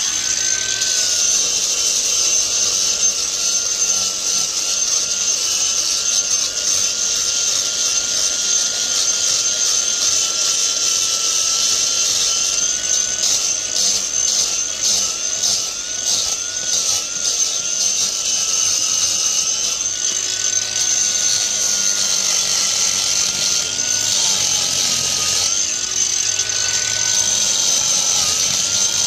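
Cordless angle grinder running continuously, grinding down the concrete benching inside a manhole to widen a narrowed drain channel. Its pitch wavers as the disc is pressed into the surface.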